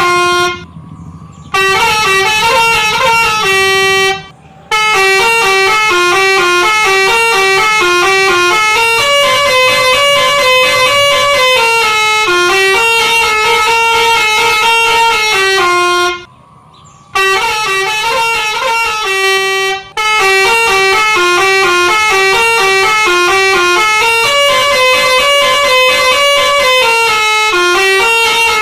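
Basuri telolet horn, the multi-note musical horn of Indonesian buses, playing a quick tune of stepping notes. There are short breaks about a second in, near four seconds, around sixteen seconds and near twenty seconds, and the tune plays through twice.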